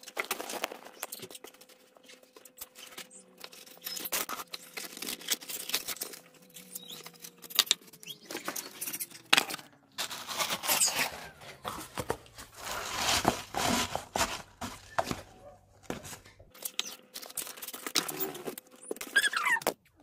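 Irregular rustling and crinkling of a kraft-paper fry case and shredded paper as the paper is handled and stuffed into the case. Near the end come a few sharp snips of scissors cutting a drinking straw.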